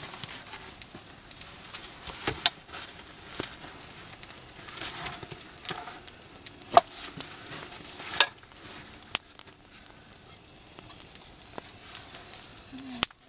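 Scattered clinks and knocks of bowls and utensils as soup is served and stirred at a camp table, over a faint crackling hiss from the campfire.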